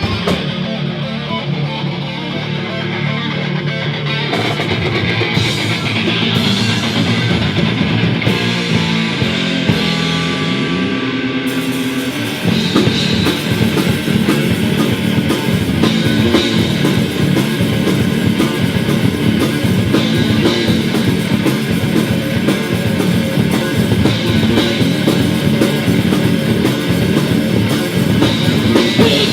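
Heavy metal band playing an instrumental intro: electric guitars lead at first, then the full band with drum kit comes in about twelve seconds in, louder and denser.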